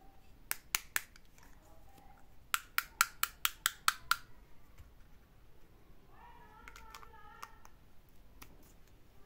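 Small plastic toy pieces clicking and snapping together as they are handled: a few clicks in the first second, then a quick run of about eight sharp clicks around three seconds in, and a few lighter clicks later.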